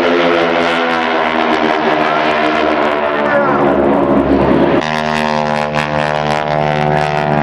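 Piston engines and propellers of the Red Baron Squadron's Stearman biplanes, a steady many-toned drone as the formation flies by. The drone changes abruptly in pitch about five seconds in.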